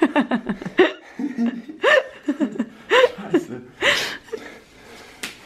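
People laughing hard: a quick run of short laugh bursts, then several high-pitched squealing peaks about a second apart that die away near the end.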